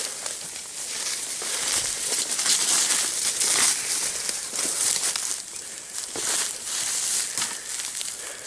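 Continuous rustling and crackling of brush and dry leaves, with many small irregular snaps, as someone moves through forest undergrowth.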